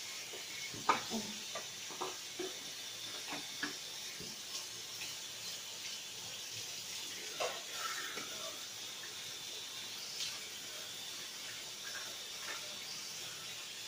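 Chicken wings with garlic and onion simmering in their juices in an uncovered aluminium pan: a steady bubbling hiss with scattered pops and ticks.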